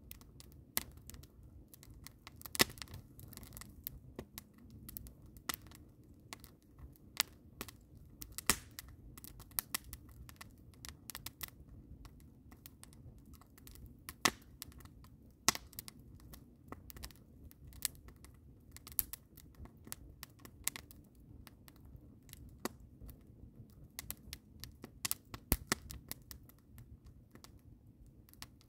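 Wood fire of split logs and green conifer boughs crackling in a steel fire ring: irregular sharp pops and snaps, with a few loud ones, about two and a half seconds in and again around the middle.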